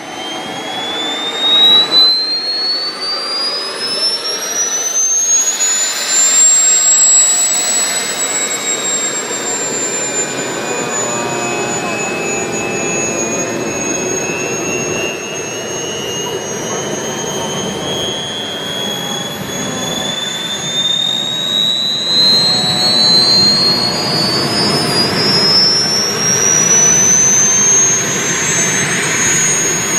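Jet engines of a giant-scale radio-controlled Avro Vulcan model running up on the ground. A high whine climbs steadily in pitch over the first eight seconds, then a second whine rises slowly through the rest, over a constant rush of jet noise.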